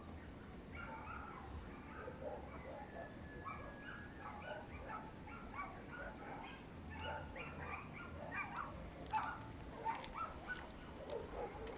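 A group of hoatzins calling, many short hoarse calls overlapping one another throughout, with a sharp click about nine seconds in.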